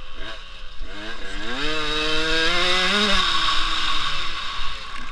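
Motocross bike engine revving hard under acceleration, heard from the rider's helmet camera. Its pitch climbs in two steps from about a second in, peaks around three seconds in, then drops as the throttle closes.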